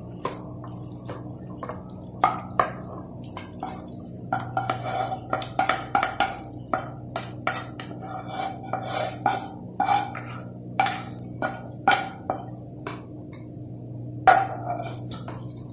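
Spoon and ladle scraping and knocking against a frying pan and the rim of a pressure cooker as thick chicken masala is spooned onto washed rice, in a run of irregular scrapes and short metallic knocks over a faint steady hum.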